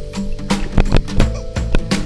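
Background music with a steady beat over held notes.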